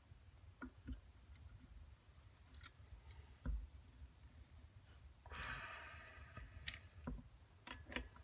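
Faint, scattered clicks and knocks of a steel torque wrench and socket being handled and fitted onto a connecting rod nut. A brief rasping noise comes about five seconds in, followed by a sharp click.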